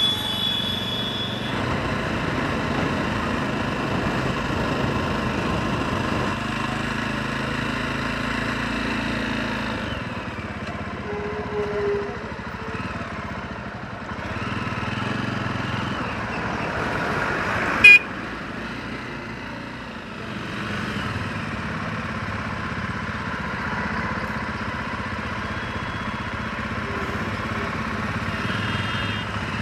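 Jawa Perak single-cylinder motorcycle heard from the saddle while riding, with engine and wind noise steady at first and dropping about ten seconds in as the bike slows into traffic. Horns of surrounding traffic sound now and then, and a brief, very loud sharp sound comes about eighteen seconds in.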